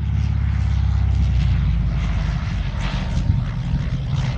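Small propeller plane's engine running steadily at power as the plane goes around after a hard bounced landing.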